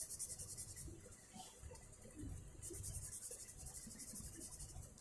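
Felt-tip sketch pen scribbling fast on paper while colouring in a shape: a faint, rapid, scratchy rasp that stops about a second in and starts again near the middle, over soft rubbing of the hand on the paper.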